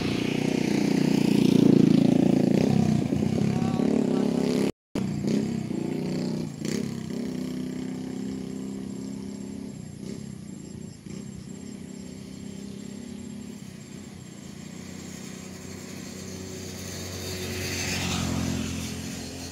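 Motor vehicle engines passing by: one is loudest about two seconds in and fades away, and another swells and passes near the end.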